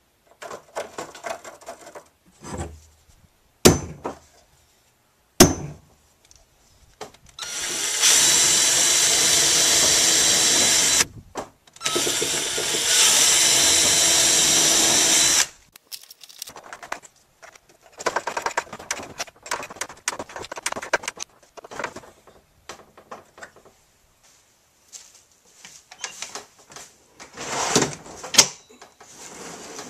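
Cordless drill run twice for about three and a half seconds each with a steady whine, boring into a wooden drawer rail; the second run starts slower and then picks up speed. Two sharp clicks come a few seconds before the drilling, and light handling knocks follow it.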